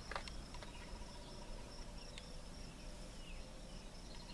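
Faint, steady high-pitched insect chirping, like crickets, over a low hum, with a few soft clicks.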